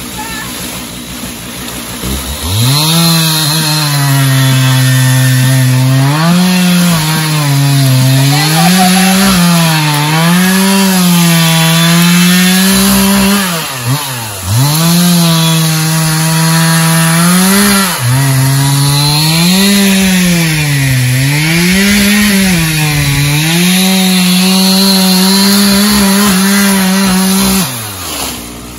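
Small engine of a handheld power tool, revving up and down every couple of seconds. It starts about two seconds in, dips briefly about halfway through, and winds down near the end.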